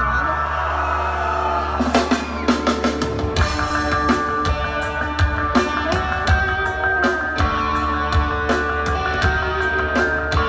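Live rock band playing loud through a venue PA, heard from the audience: sustained bass notes and guitar lines, with the drum kit coming in about two seconds in.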